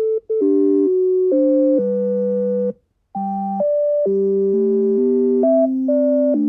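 Synthesized electronic tones: a sequence of steady, chord-like notes that jump in pitch every half second or so, with a brief silent gap about three seconds in. This is mathematical functions turned into sound, each value played as a pitch.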